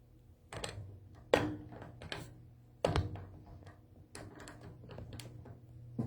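Handling noise close to the microphone: a run of sharp knocks and rustles, the loudest about a second and a half in and again near the three-second mark, over a steady low hum.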